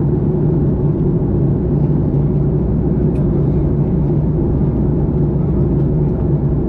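Steady cabin drone of a jet airliner in flight: a constant low hum from the engines and airflow, with a few steady tones in it.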